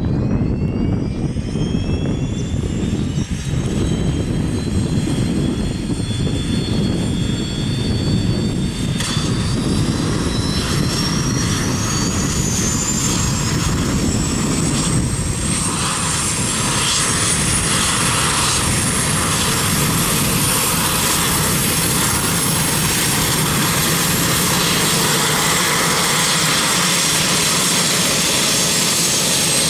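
Pilatus PC-12's Pratt & Whitney Canada PT6A turboprop engine starting up: a whine that climbs steadily in pitch as the turbine spools up and the propeller begins to turn, growing fuller about nine seconds in.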